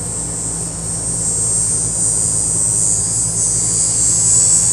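A high, steady insect chorus buzzing, swelling louder over the last couple of seconds, over a steady low hum.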